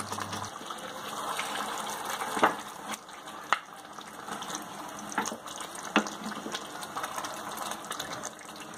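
Gravy simmering and bubbling around a whole chicken in a pan, with about four sharp clicks of a wooden spatula against the pan as gravy is spooned over the bird.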